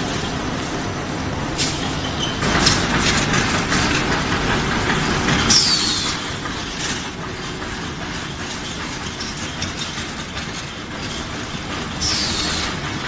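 An automatic folder gluer for corrugated cartons running: a steady mechanical clatter of its belts and rollers, with scattered clicks and knocks. Short high-pitched falling squeals come about six seconds in and again near the end.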